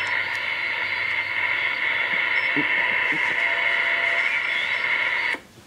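Receiver static from an RCI-2950 radio's speaker while it is tuned to a weak long-distance signal: a steady hiss with faint tones and traces in it, cutting off suddenly near the end.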